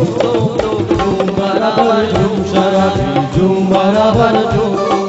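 Live band playing an instrumental passage of a Hindi qawwali: tabla keeps a steady rhythm, its low strokes bending in pitch, under a keyboard melody.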